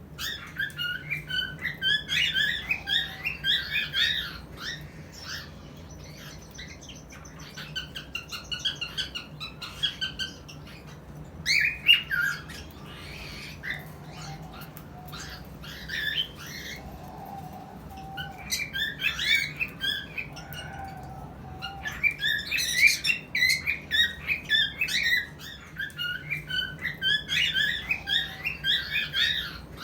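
Cockatiels calling in bouts of rapid, high chirps and whistles, with short pauses between the bouts.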